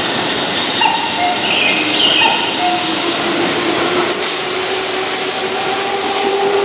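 Keihan electric train pulling out of a station and gathering speed as its cars pass close by: wheels running on the rails, and a motor whine that rises slowly in pitch from about two seconds in. A few short high squeals come in the first two seconds.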